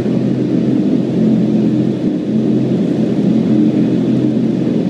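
Indoor skydiving vertical wind tunnel blowing air up through its flight chamber: a loud, steady rush of air with a low hum under it.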